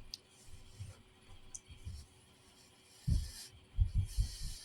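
Close-miked eating sounds. A couple of light clicks, then from about three seconds in a person chewing a mouthful of rice with uneven wet mouth sounds.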